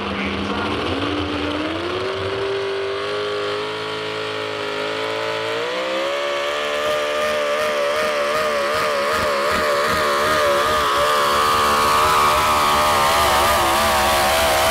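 Supercharged modified 4x4 pulling truck's engine at full throttle, dragging the sled. Its pitch climbs steadily over the first six seconds, then holds high with a fast waver.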